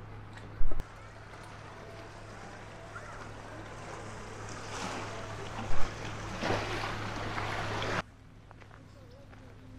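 Steady outdoor rushing noise that swells in the middle, with two sharp knocks, one about a second in and one near six seconds, and a sudden cut to a quieter background near the end.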